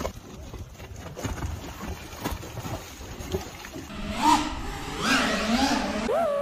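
Wind and sea noise on a fishing boat with scattered clicks. Then, about four seconds in, an FPV racing drone's motors start whining, the pitch sweeping up and down as the throttle changes.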